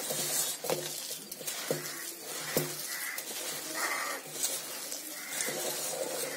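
A hand mixing and squeezing coarse-ground lentil vada batter with chopped onion in a bowl, with a short soft squelch or knock about once a second.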